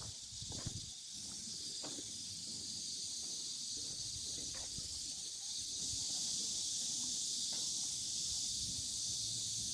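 Steady, high-pitched insect chorus hissing, swelling a little about six seconds in.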